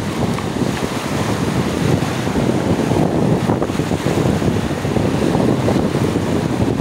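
Small waves breaking and washing up a sandy beach, with steady wind buffeting the microphone.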